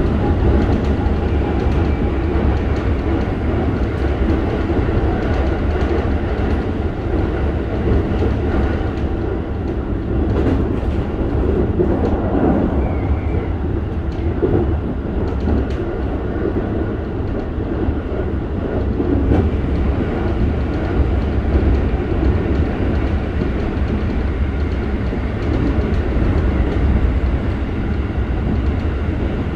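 Steady in-car running noise of a Keikyu 1000-series electric train: the rumble of wheels on rail at speed, with a few faint clicks from the track.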